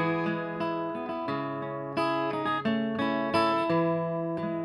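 Acoustic guitar strummed, a new chord struck every second or so and left ringing.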